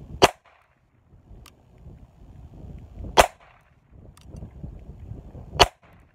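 Imperial Metals "IMP" .22 Short revolver fired three times, single sharp shots a few seconds apart, with a faint click between shots.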